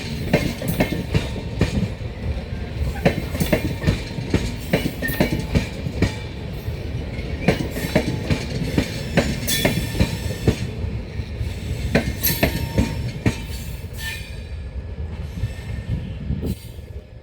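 Train running past on the track, its wheels clattering over rail joints with a heavy rumble underneath. The sound drops away sharply near the end.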